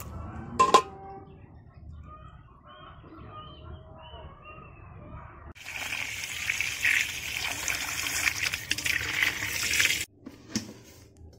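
Water running and splashing over freshly gutted catfish (lele) in a metal bowl for about four seconds, then cutting off suddenly. Before it there is a single sharp knock about a second in.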